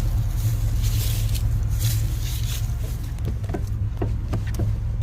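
Farm tractor engine idling with a steady low rumble, with a series of short knocks in the last two seconds.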